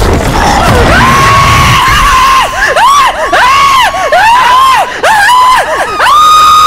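Loud, high-pitched shrieking from a screaming hag animatronic's soundtrack. A held scream gives way to a run of quavering wails that rise and fall several times a second, and a held scream returns near the end.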